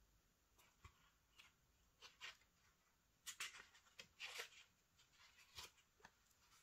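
Faint, scattered paper rustles and soft taps, about eight short ones in a row: the pages of a small booklet being leafed through to find an entry.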